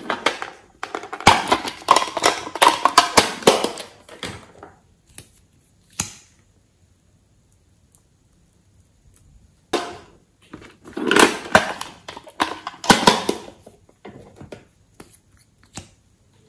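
Bursts of wet crackling and squelching as slime and a clay-filled plastic piping bag are worked by hand. There are two spells of dense crackles, the first about a second in and the second about eleven seconds in, with quiet between.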